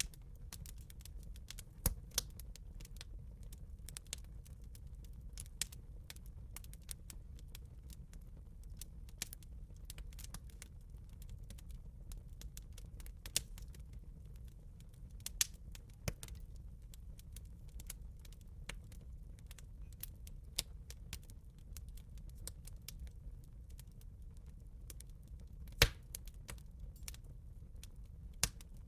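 Campfire crackling, with irregular sharp pops and snaps, a few of them much louder, over a steady low rumble.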